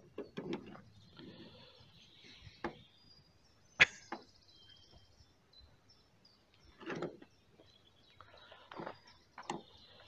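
Quiet outdoor background with faint birdsong, broken by scattered short clicks and rustles close to the microphone, the loudest a sharp click about four seconds in.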